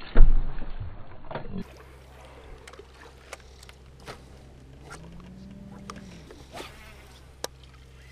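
A loud knock on the microphone just after the start. Then a steady low buzzing hum from the boat's motor, with a few short, sharp clicks.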